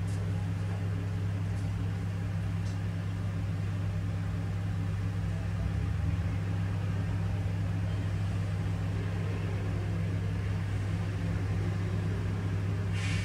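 Heavy diesel dump truck engine running at low speed with a steady low drone as the tri-axle truck creeps along the road. A brief hiss comes right at the end.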